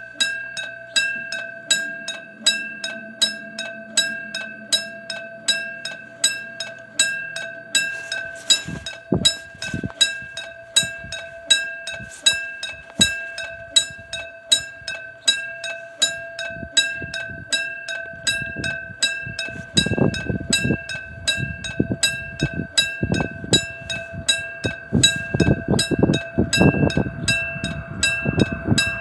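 Railroad crossing warning bell ringing on and on in rapid, evenly spaced dings. About two-thirds of the way through, a passenger train's rumble and rhythmic wheel knocks come in under it and grow louder toward the end as the Mugunghwa train reaches the crossing.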